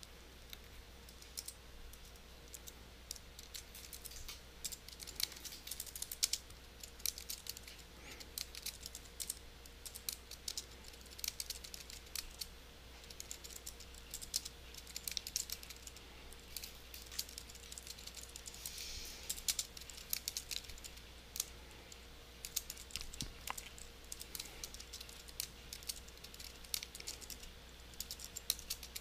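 Typing on a computer keyboard: runs of quick keystrokes with short pauses between them, over a faint steady hum.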